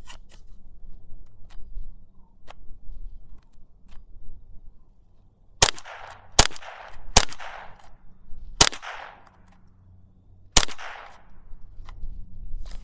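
Five single shots from a GSG-15 semi-automatic .22 LR rifle, fired slowly one at a time, starting about five and a half seconds in. The first three come under a second apart, and the last two follow after longer pauses. Each is a sharp crack with a short echo.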